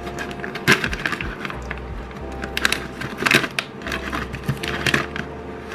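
Foil-lined snack bag crinkling and tearing as it is pulled open by hand, in several short sharp bursts, over background music.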